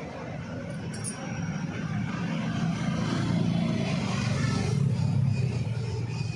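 Traffic noise from a motor vehicle passing close by on the road, its low engine rumble growing louder through the middle and easing near the end.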